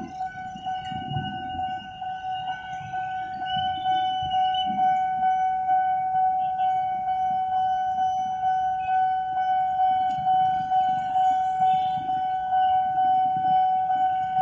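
Railway level-crossing warning alarm sounding one steady electronic tone, with motorbike and car engines running past beneath it.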